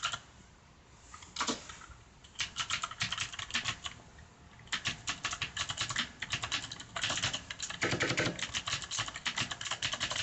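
Typing on a mechanical keyboard with Cherry MX Blue switches: fast runs of sharp clicky keystrokes in bursts with short pauses, a few heavier key presses near the end.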